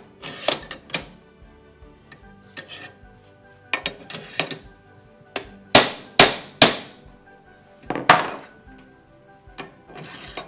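Steel hammer tapping a metal fitting tool set over the shaft of a Grundfos SQF submersible pump, driving a part down onto the shaft: sharp metallic knocks with a short ring, in small groups of two or three, the loudest three close together about six seconds in.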